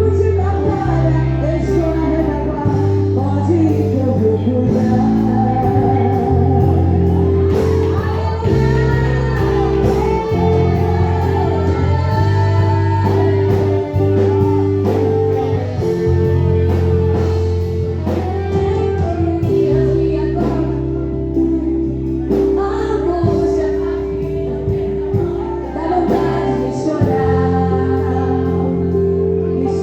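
Live Christian worship music: singing over a band, with held bass notes that change every few seconds.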